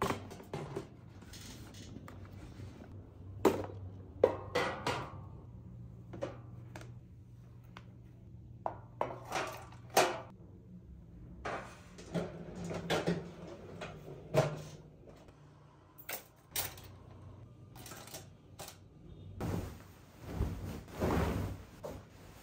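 Books and small objects being set down and shifted in a white metal mesh rolling cart: a scattered series of light knocks, clacks and thumps. Near the end there is a longer stretch of rustling.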